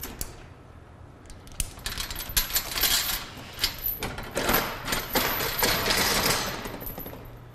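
Metallic clinking and rattling: a steel pry bar knocking against the robot arm's metal parts, a quick, uneven run of clicks and taps that fades out near the end.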